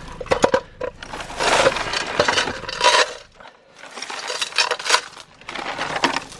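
Metal chain of a chain fall hoist clinking and rattling as it is handled, with a dip in the clatter about halfway through.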